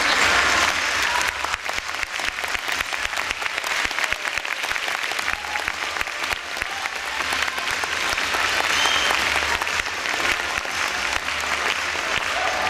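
Audience applauding: dense, continuous clapping from many people, with a few brief calls heard over it.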